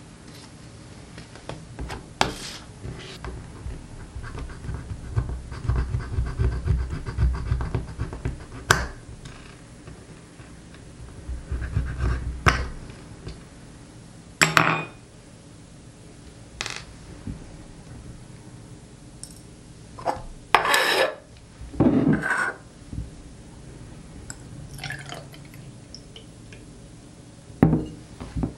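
Glass shot glasses and a bottle being handled on a wooden tabletop while drinks are mixed: scattered clinks and knocks of glass on wood, with stretches of liquid pouring.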